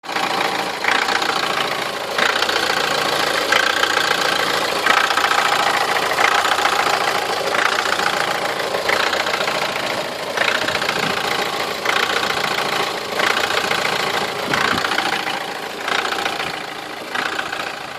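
Opel Astra J 1.7 CDTI four-cylinder diesel idling cold, with an odd extra noise that swells and fades in a regular cycle about once every second and a half. The noise occurs only while the engine is cold.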